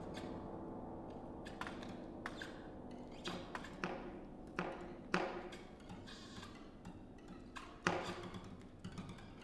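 Contemporary chamber ensemble playing a quiet, sparse passage: scattered short, sharp tapping and plucked attacks over a low sustained resonance that slowly fades away.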